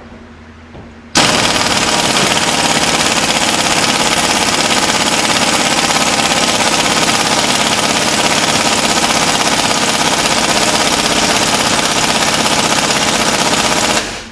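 Impact wrench hammering continuously for about thirteen seconds. It starts about a second in and cuts off just before the end while it runs down the pinion nut on a truck's rear differential, where hand tools can't get enough leverage.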